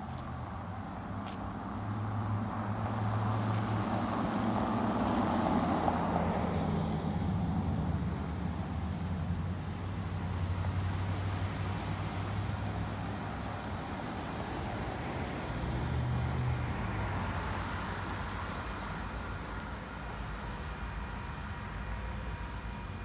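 Street traffic: motor vehicles running and passing, a low engine hum that swells as vehicles go by, about a few seconds in and again around two-thirds of the way through.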